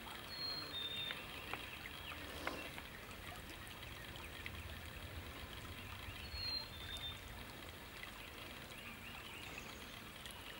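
Faint outdoor ambience: a steady soft rushing noise, with a short, high two-note bird call near the start and again about six and a half seconds in.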